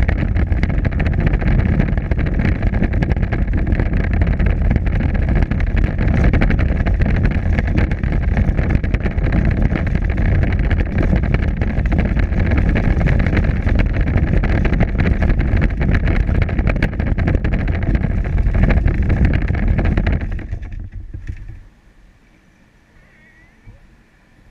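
Power Wheels ride-on toy driving over cracked pavement: a steady whine from its drive over a loud rumble and rattle from its wheels on the rough surface. About 20 seconds in the noise falls away as it comes to a stop.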